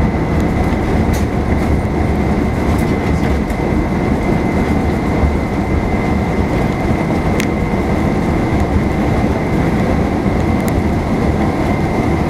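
Cabin noise of an Airbus A350-941 rolling out on the runway after landing: a steady rumble from the wheels and the Rolls-Royce Trent XWB engines, with a thin steady whine and a few faint clicks.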